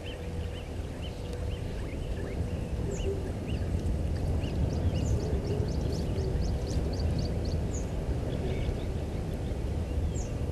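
Small birds chirping now and then over a steady low outdoor rumble, with a quick run of high chirps about halfway through.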